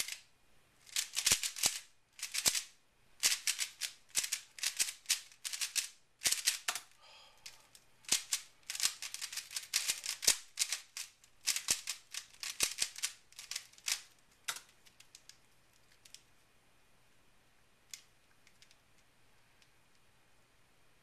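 Aolong v2 3x3 speedcube clicking and clacking as its layers are turned in quick bursts of finger-tricks. The turning stops briefly about 7 s in, resumes about a second later, and dies away about 14 s in, leaving only a few faint clicks.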